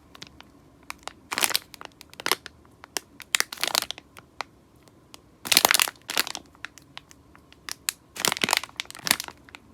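iBloom Angel Bunny squishy toy being squeezed and handled, giving short bursts of crinkling, crushing noise, a squeeze every second or so, the loudest about five and a half seconds in.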